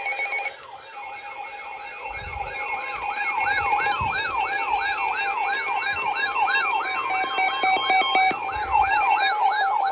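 Electronic emergency-alert siren: a fast rising-and-falling wail, about two and a half sweeps a second, over steady held tones, sounding as the tone of a broadcast weather warning.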